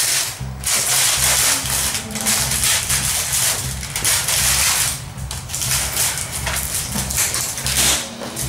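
Clear plastic shrink-wrap crinkling as it is handled and pulled off a cardboard box, with short pauses, over background music with a repeating bass line.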